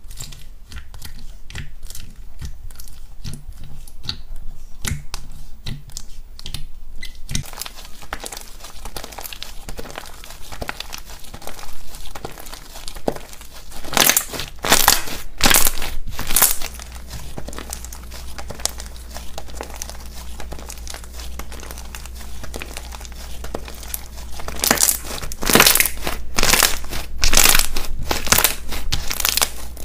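Finger pressing into foam-bead slime, a run of small crunchy clicks and pops. After about seven seconds, hands squeeze and stretch thick white slime, making crackly, tearing sounds that come in louder bursts in the middle and near the end.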